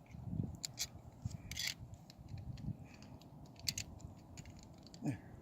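Scattered light metal clicks and scraping as a steel spring rake tooth and its hold-down clip are worked into place on a hay rake bar.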